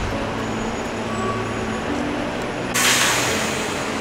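Street traffic: a heavy vehicle's engine running steadily, with a sudden loud hiss of air brakes releasing about three seconds in.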